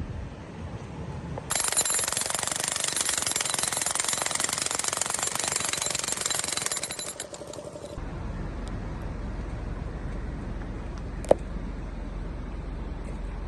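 Jackhammer hammering in a fast, dense rattle that starts about a second and a half in and stops after about five and a half seconds. A low steady rumble follows, with one sharp click near the end.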